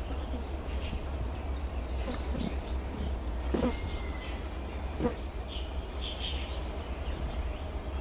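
Park ambience: small birds chirping now and then over a steady low rumble, with two sharp clicks near the middle.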